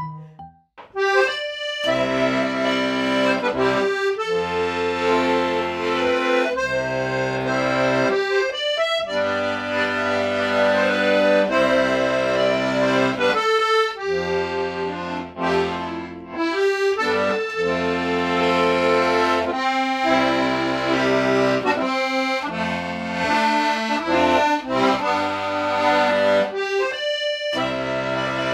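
Accordion playing an Irish tune: held bass chords under a melody line, with short breaks between phrases. It starts about a second in.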